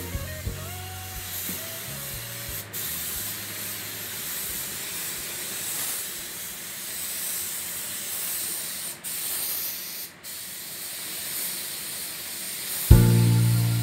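Gravity-feed paint spray gun spraying, a steady high air hiss that breaks off briefly three times, once about three seconds in and twice around the ten-second mark.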